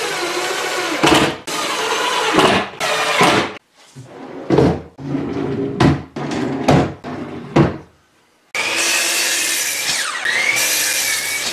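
A cordless Makita 18V impact driver runs screws into metal drawer slides in short bursts. A plywood drawer then slides open and shut on its metal slides with a series of knocks and rattles. About eight and a half seconds in, a miter saw starts and cuts through a 2x4, its motor whine dipping in pitch as the blade bites and rising again.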